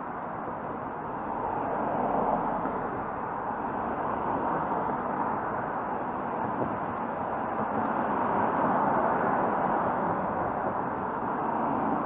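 Road traffic: cars passing by on the street, a steady rush of tyre and engine noise that swells about two seconds in and again around eight to nine seconds.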